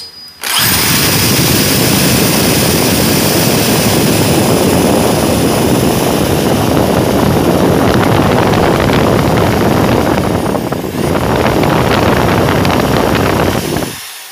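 Electric drill boring a hole through a metal scooter handlebar tube, running steadily under load. It starts suddenly about half a second in and stops near the end.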